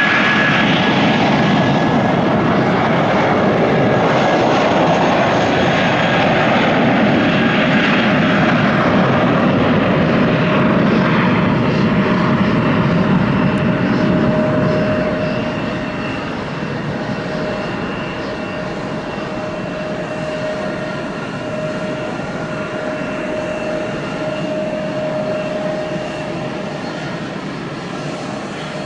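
Jetstar jet airliner's engines at takeoff power, a loud steady roar that fades about halfway through as the aircraft climbs away, leaving a quieter, steadier engine tone.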